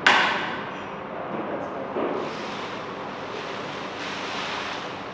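Rustling and crinkling of a crumpled translucent sheet being handled before a projector light, opening with a sudden loud crackle that fades over about a second, then a second crinkle about two seconds in and a swelling, steady rustle.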